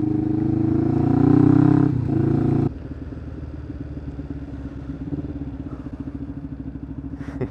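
Kawasaki GPZ500S parallel-twin engine heard from the rider's helmet, pulling with its pitch rising. About two and a half seconds in the sound cuts abruptly to a quieter, steady, low engine note at slow speed, with a brief click near the end.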